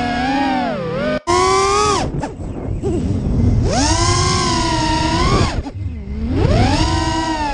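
Emax RS2205 2300KV brushless motors with Dalprop tri-blade props on an FPV racing quad, whining as the throttle is worked in acro flight. The pitch swoops up and down, cuts out briefly about a second in, and fades away twice (around two seconds in and again near six seconds) before climbing back.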